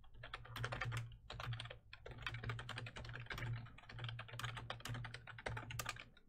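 Typing on a computer keyboard: a quick, uneven run of keystroke clicks with short pauses, over a low hum.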